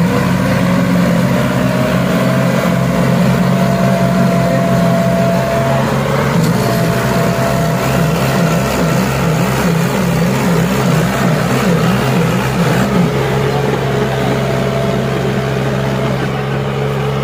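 Two diesel tractors, a Massey Ferguson 240 and a Ghazi, running at full throttle under heavy load as they pull against each other in a tug-of-war. The engine note wavers in the middle, then settles steady again.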